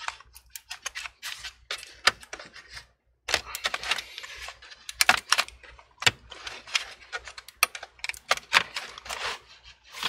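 Plastic pry tool working along the seam of an MSI GF63 Thin laptop's plastic bottom cover, with rapid, irregular clicks and snaps as the cover's clips come loose, and some scraping between them.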